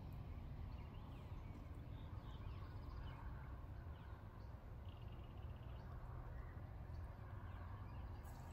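Quiet outdoor ambience: a low steady rumble with faint bird chirps, including a short rapid trill about five seconds in.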